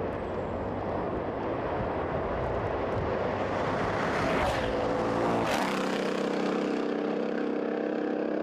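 High-performance cars running flat out, engines at high revs, with a close pass that is loudest about four to five seconds in. After that a steady pitched engine note carries on.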